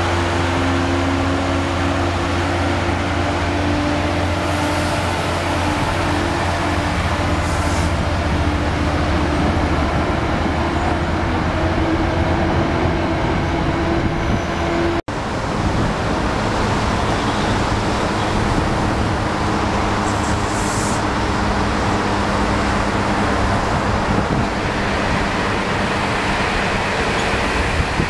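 A diesel locomotive-hauled commuter train pulling out past the platform: a steady low engine hum with tones that drift slightly in pitch, mixed with rolling coach noise. It breaks off suddenly about halfway, giving way to the steady rumble of an M8 electric multiple-unit train rolling along the tracks.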